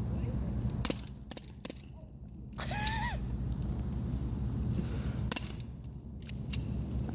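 CO2-powered BB guns firing: a series of sharp pops, three within the first couple of seconds and three more in the last two seconds.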